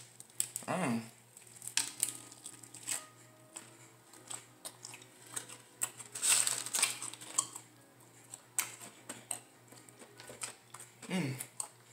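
Eating sounds: biting into and chewing a fried chicken drumstick, with scattered clicks of a fork against a plate. There is a louder spell of crackly chewing and handling about six seconds in.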